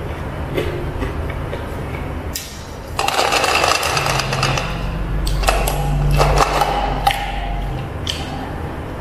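A large insulated tumbler picked up off the table about three seconds in and drunk from, with handling noise, a few clicks and gulping.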